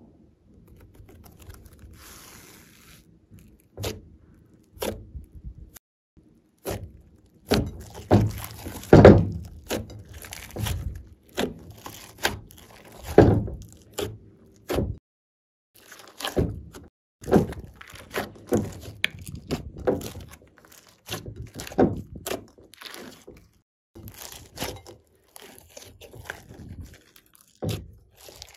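Hands squeezing, poking and stretching a thick glossy slime in a glass bowl: a string of wet squelches and sharp pops as trapped air pockets burst, loudest around eight to thirteen seconds in.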